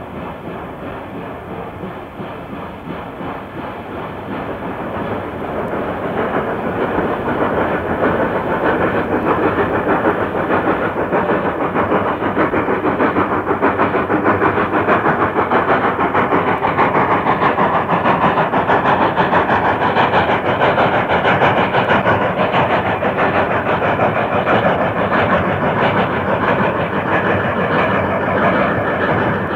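A steam train running on the rails, growing louder over the first several seconds and then holding steady.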